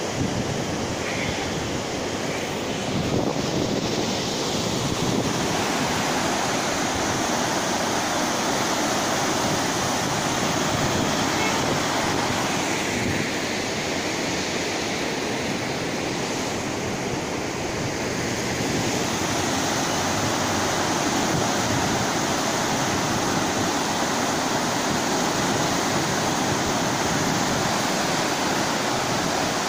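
Steady, even rush of river water spilling through a barrage's sluice gates, mixed with wind on the microphone.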